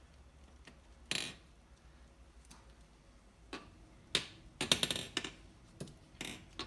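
Metal engine parts being handled at the workbench: separate clinks and knocks, with a quick run of rattling metallic clicks about halfway through.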